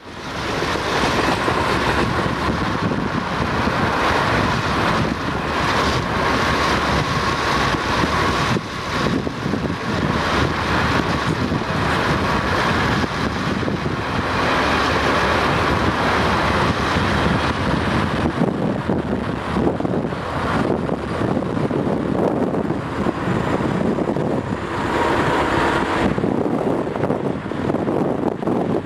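Steady running noise heard from inside a moving vehicle, a rumble and rush with a thin whine that comes and goes.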